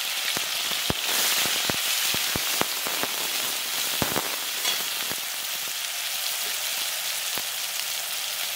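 Chopped onion sizzling in hot oil in a kadai as it goes in and is stirred with a metal slotted spatula: a steady sizzle, with scattered sharp ticks over the first five seconds.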